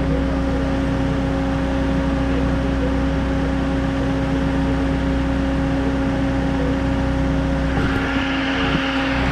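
Concrete pump's engine running steadily with a constant drone. A rushing noise joins it near the end.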